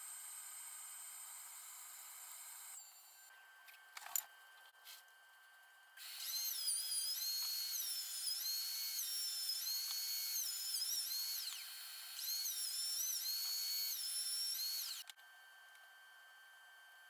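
Electric power tools running. A steady motor whine gives way, after a short lull and a click, to a louder high-pitched whine that dips and recovers in pitch over and over for about nine seconds, then cuts off abruptly.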